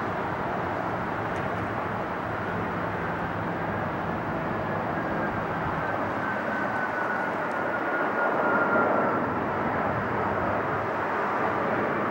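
Boeing 747-400 airliner's four jet engines on landing approach, gear down: a steady rush of jet noise with a faint whine sliding slowly lower in pitch, growing a little louder about eight seconds in.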